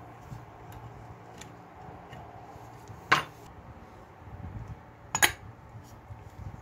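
Two sharp metallic clinks about two seconds apart, the second a quick double, from the small metal parts and painted steel case of an old alarm clock being handled.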